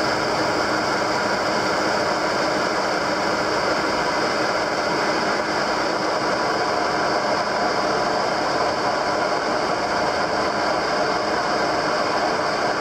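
Metal lathe running steadily, its four-jaw chuck spinning while a carbide turning tool takes a facing cut of about 15 thou, power-fed in toward the centre of the workpiece.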